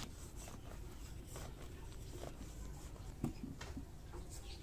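Hands digging into and crumbling dry garden soil: faint scratchy crunching and scraping, with one short, louder knock a little after three seconds in.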